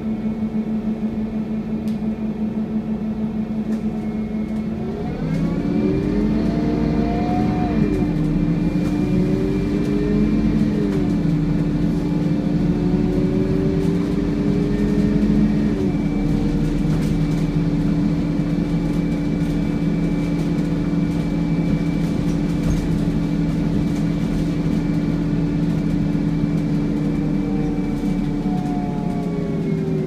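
Scania N230UD double-decker bus heard from inside the upper deck, making a steady hoovering whine over the engine. About five seconds in the whine rises in pitch and holds, with the engine note rising and falling beneath it for a while. The whine drops back down near the end.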